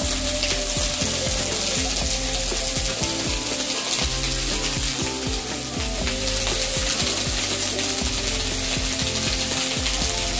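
Cauliflower florets frying in hot oil in a metal wok, a steady sizzle, with a metal spoon scraping and clicking against the wok at the start. A continuous clicking rattle runs underneath.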